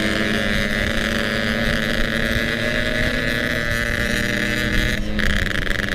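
Yamaha RX-King two-stroke single-cylinder motorcycle engine running at a steady cruising pace under the rider, with some wind noise on the microphone. The higher part of the engine note dips briefly about five seconds in.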